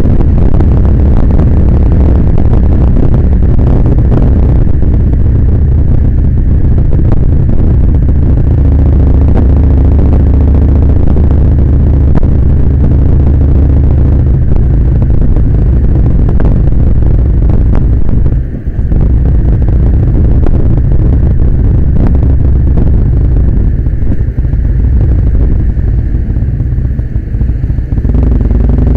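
Kawasaki Vulcan Nomad's V-twin engine running while riding at road speed in traffic, with heavy wind rumble on the microphone. There is one brief drop in the rumble a little past halfway.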